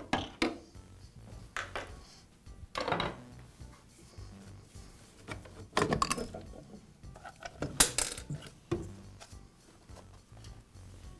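Plastic motor housing of a Makita table saw being worked loose and pulled off the armature and gearbox: a handful of separate knocks, scrapes and clatters, the loudest about eight seconds in.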